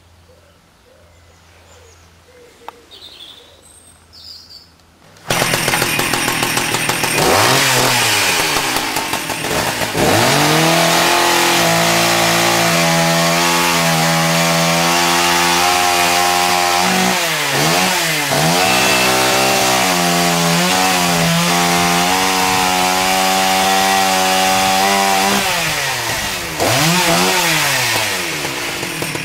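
McCulloch Titan 55 two-stroke chainsaw starting up about five seconds in, then revved: held at high revs, with the throttle let off several times so the pitch drops and climbs back.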